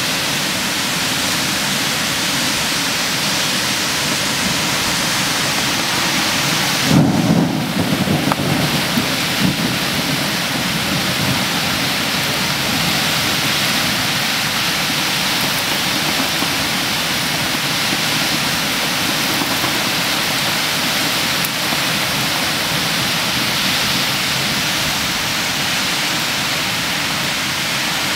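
Heavy thunderstorm rain pouring steadily, with a rumble of thunder about seven seconds in that lasts a couple of seconds.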